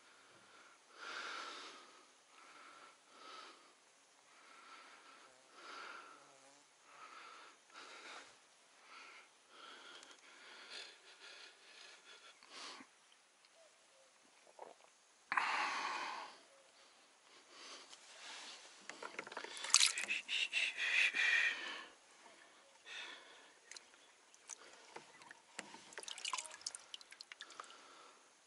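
Oars working a small rowing boat: soft rhythmic strokes with water dripping, about one a second. About fifteen seconds in and again around twenty seconds there are louder bursts of splashing and knocking.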